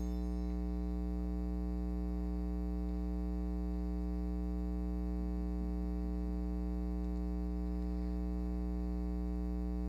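Steady electrical mains hum, a buzzy drone with a ladder of overtones, running unchanged. At the very start the last of the altar bells' ringing dies away.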